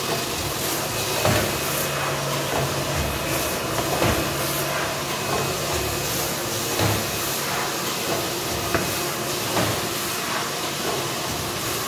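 Paper food-box forming machine for PE-coated paper running in production. It makes a steady mechanical clatter and hiss, with a louder knock about every three seconds.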